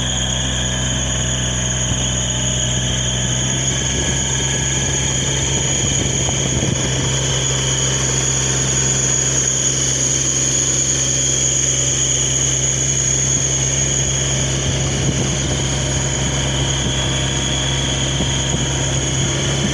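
Gator utility vehicle driving along, its motor running steadily with a constant low hum and a high, even whine over it. The title calls it noisy.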